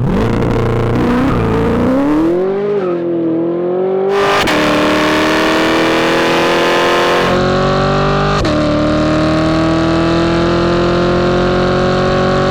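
C8 Corvette's LT2 V8 exhaust under hard acceleration. The engine revs climb steadily, then drop suddenly twice, about 4 and 8 seconds in, as it shifts up through the gears.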